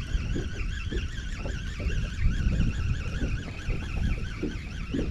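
Fishing reel whining while fighting a hard-pulling fish, the pitch wavering about four to five times a second, over a low wind rumble.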